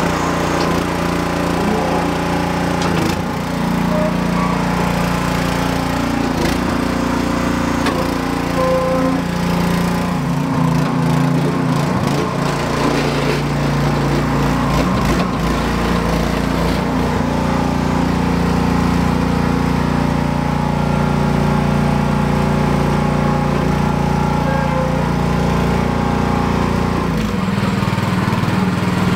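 Tracked mini dumper's 6.5 horsepower single-cylinder petrol engine running under work, its pitch dropping and recovering several times as the hydraulic drive takes load, with occasional knocks and clatters.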